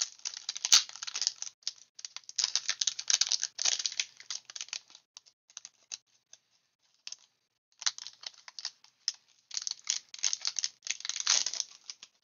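Foil booster-pack wrapper crinkling and tearing as it is ripped open by hand, in bursts of dense crackling with a sparser stretch in the middle. Near the end the crinkling goes on as the stack of trading cards is pulled out of the wrapper.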